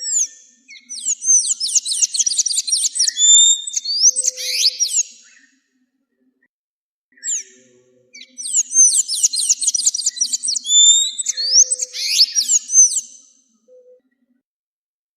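An azulejo singing: two long warbled song phrases of rapid, sliding whistled notes, each about five seconds long, with a pause of a couple of seconds between them.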